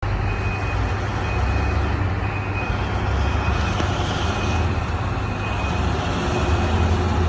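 Heavy diesel mining machinery, a shovel loading overburden into dump trucks, running with a steady deep engine rumble. A thin high tone sounds on and off about once a second.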